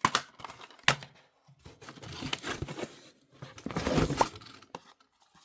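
Plastic DVD cases being handled: two sharp clicks, then stretches of scratchy rustling and scraping as cases are pulled out and turned over.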